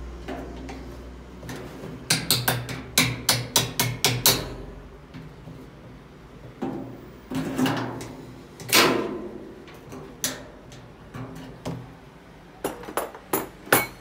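Sharp metal taps and knocks as a tool strikes a top-loading washing machine's suspension rod fitting at the cabinet corner to free its rubber mount. A quick run of about nine taps comes about two to four seconds in, then a few single louder knocks, and another short run of taps near the end.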